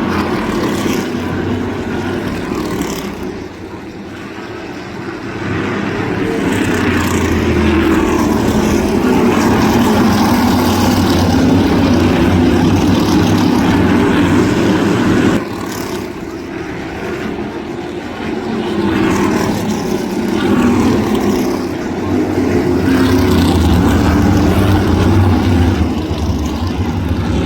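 Pack of crate-engine V8 modified race cars running laps on a short oval track. The engine noise swells and fades as the cars come past, and drops suddenly about halfway through.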